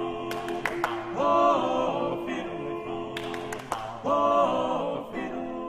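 Six-voice male a cappella ensemble singing: a low chord held under two short, brighter repeated phrases of the animal-song refrain, with a few sharp clicks between them.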